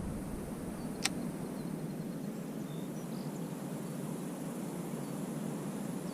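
Quiet outdoor ambience on the water: a steady hiss with a few faint high chirps, and one sharp click about a second in.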